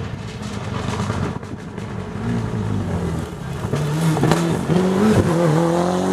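Toyota Celica rally car approaching at speed and passing close by, its engine getting louder and rising in pitch as it revs, with a short dip in pitch about five seconds in before it revs up again.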